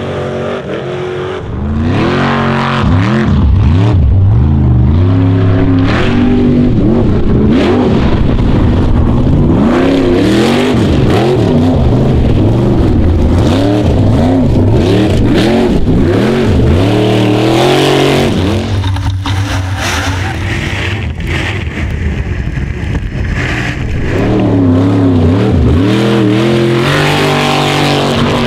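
Formula Offroad buggy's engine revving hard over and over, its pitch sweeping up and down in quick rises and falls as the paddle tyres spin through mud. For several seconds after the middle it settles to a steadier drone, then the revving picks up again near the end.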